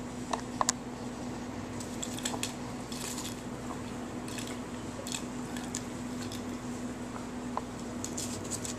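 Kitten playing on a hardwood floor: scattered light clicks and taps, a few close together now and then, over a steady low hum.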